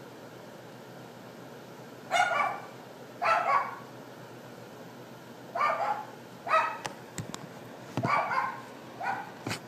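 Dog yapping: six short, sharp barks spaced about a second apart, starting about two seconds in. A few clicks and low thumps come near the end.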